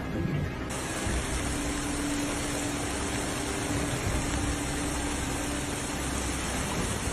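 Steady rushing storm noise of wind and heavy rain, with a brighter hiss joining about a second in.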